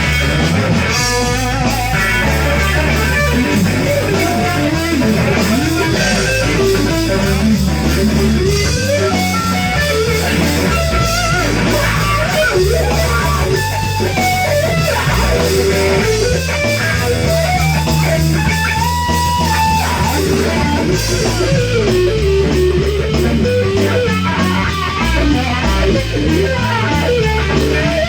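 Live rock band playing an instrumental: a melodic electric guitar lead over bass guitar and drums.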